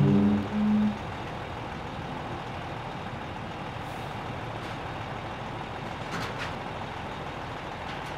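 A small ensemble of orchestral instruments ends on a held low chord about a second in, leaving a steady hum of trucks and machinery.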